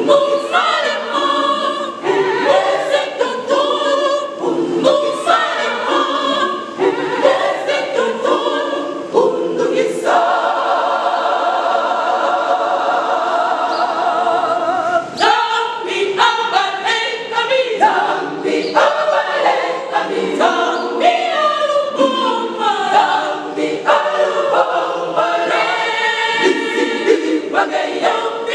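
A choir singing, with a long chord held for several seconds in the middle before the voices move on again.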